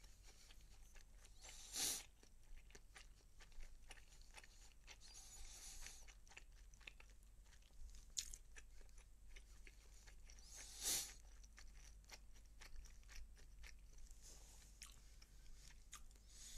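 A person chewing and crunching food close to a phone microphone, faint, with many small clicks. Two brief louder hisses come about two and eleven seconds in.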